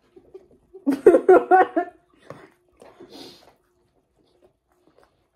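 A person's voice for about a second, starting about a second in, then faint small sounds over a low steady hum.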